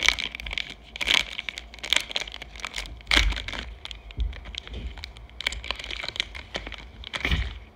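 Plastic wrapper of a Topps Archives fat pack of baseball cards crinkling as the pack is shaken and handled, then torn open near the end.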